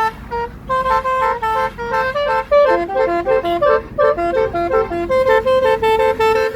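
Telolet basuri musical horn playing a quick tune of short, clipped notes stepping up and down, several notes a second.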